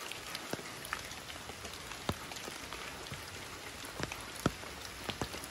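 Light steady rain: a soft even hiss with scattered sharp drips of single drops landing.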